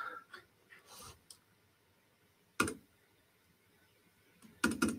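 Clicks at a computer: a few faint single clicks, a sharper one in the middle, then a quick run of several clicks near the end.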